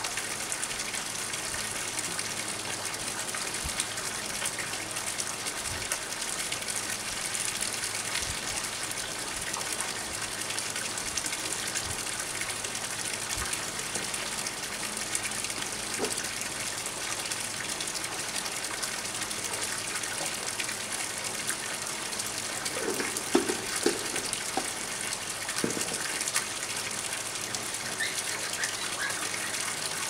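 A thin stream of water pouring steadily into a pond, splashing continuously where it hits the surface. A few brief faint sounds come through about three-quarters of the way in.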